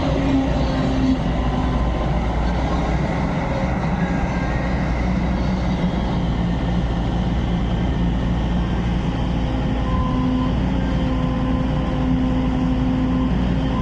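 Backhoe loader's diesel engine running steadily, with a constant low rumble and faint steady tones that come and go over it.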